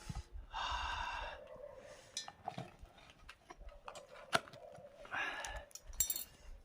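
Metal knocks and clinks of a cooking pot and utensils, with two longer squealing scrapes of metal on metal, as freshly baked bread is worked loose from a hot pot.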